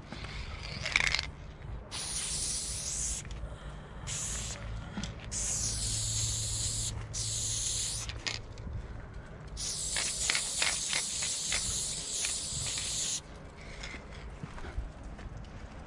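Spray-paint can hissing in five bursts of a second or two each as paint goes onto a wall, with short pauses between them. The longest burst lasts about three and a half seconds and ends a little before the end.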